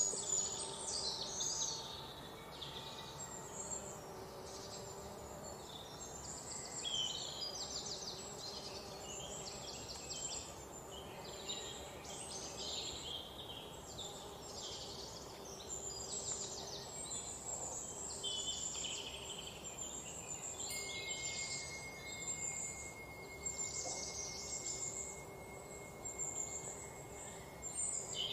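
Small birds chirping and twittering continuously, many short high calls and fast trills overlapping.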